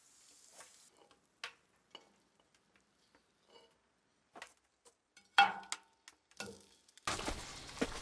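Cast iron skillet on a wood stove: a spatula scrapes and clicks as fried food is scooped out, with one sharp metal clank about five and a half seconds in. Near the end, venison steaks go into the hot pan and start sizzling steadily.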